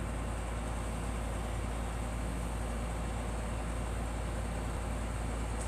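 Steady low rumble with an even hiss over it, unchanging and without distinct events; no coughing is heard.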